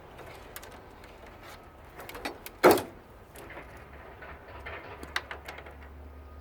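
Wiring and hand tools being handled inside a tankless water heater during teardown: scattered small clicks, with one short, loud scrape about three seconds in.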